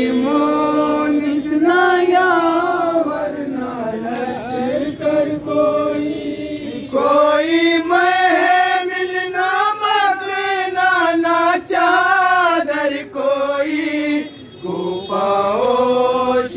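Men chanting an Urdu noha, a Shia mourning lament, unaccompanied. The melodic lines are long and drawn out, with sustained held notes in the middle and short breaks between phrases.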